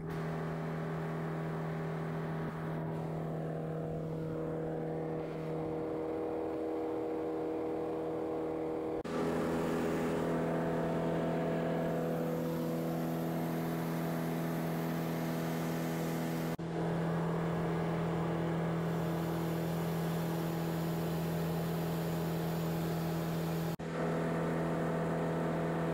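Van's RV-7A single-engine piston airplane in cruise: a steady engine and propeller drone with wind noise. It shifts abruptly in level and pitch about 9, 16 and 24 seconds in.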